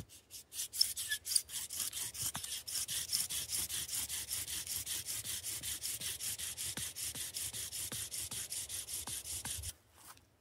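Bow drill in use: the bow sawed rapidly back and forth spins the wooden spindle in the fireboard, making a rhythmic grinding, hissing friction sound at about five strokes a second. It builds up over the first second or two, then stops abruptly near the end once the drilling has made an ember.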